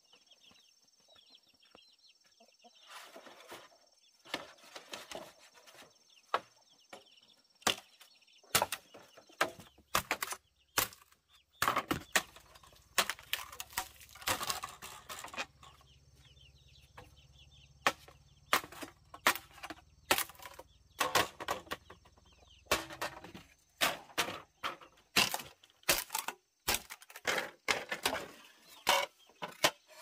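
Chickens clucking over a run of sharp, irregular knocks, coming every half second to two seconds from about a quarter of the way in, with a faint low hum through the middle.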